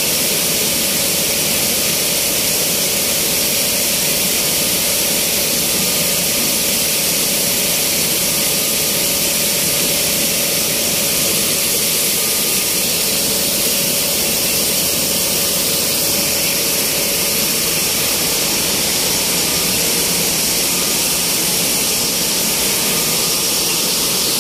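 Small flour mill's machinery running: electric motors driving belt-driven roller mills and cyclone blowers make a loud, steady hum with a strong hiss.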